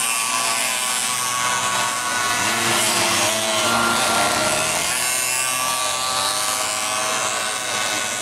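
Engines of several MiniGP pocket bikes racing past, a high-pitched buzz of overlapping engine notes that rise and fall as the riders rev and go by.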